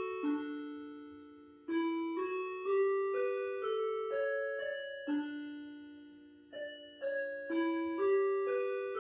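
Factory chime playing a slow melody in a piano-like electronic tone. Each note is struck and rings out, fading, and the notes come in short phrases.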